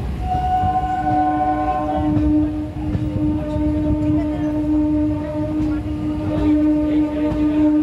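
Electric local train running, with a long, steady horn of several notes held over the rumble of the train.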